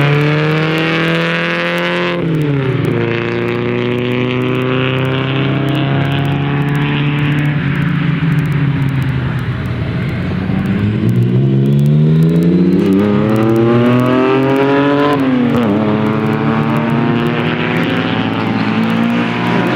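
Racing car engines running hard as the cars drive through the course. The pitch climbs, falls sharply about two seconds in as the throttle comes off, then climbs steadily again from about halfway through before dropping off once more.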